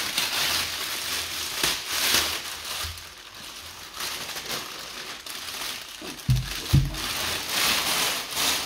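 Clear plastic bag rustling and crinkling as a bookshelf speaker is pulled out of it, with two dull thumps about two-thirds of the way through.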